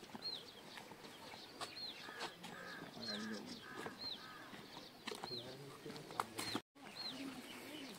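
A bird repeating a single short, high call about once a second, each note rising and falling. The audio cuts out for a moment about two-thirds of the way through.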